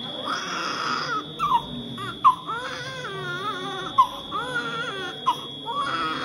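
Newborn baby crying in a string of wails, each one rising and falling in pitch.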